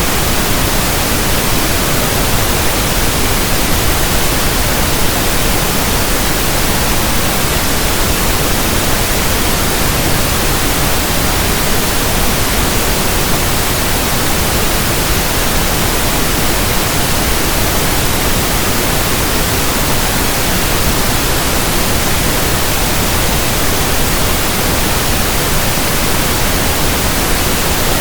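Synthetic pink noise: a steady, even hiss spread across all pitches, with no change in level.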